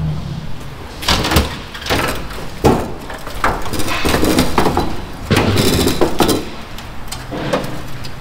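Irregular knocks, clanks and rattles of hands-on work on an old truck, about a dozen separate hits of tools and metal parts being handled.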